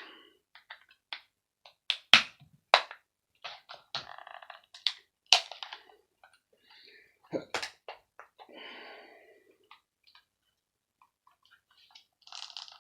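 Hammer and tools working at the plastic casing of a heart-monitor transmitter to force it open: about six sharp knocks and cracks, with rough scraping and creaking of the plastic in between.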